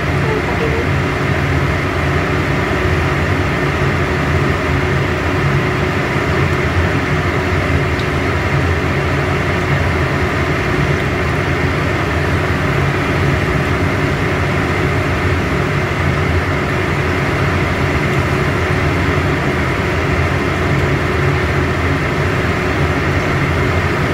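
Battered chilies deep-frying in hot oil in a pan: steady sizzling, with a faint steady hum underneath.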